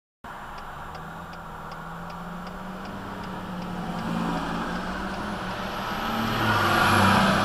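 Fire truck pumper engine running as the truck turns and drives past close by, heard from inside a car. It grows steadily louder to a peak near the end, with a faint high whine rising in the last couple of seconds.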